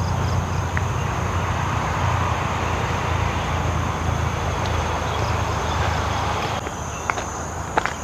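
Steady rumble of road traffic from a nearby main road. Near the end a steady high-pitched tone comes in, along with a few short clicks.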